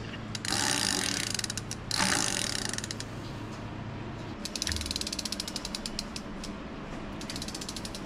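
Freehub pawls on a direct-drive rear hub motor ratcheting as the cassette is turned by hand: rapid clicking, with two stronger spins in the first couple of seconds, then clicking that thins and slows as the wheel coasts.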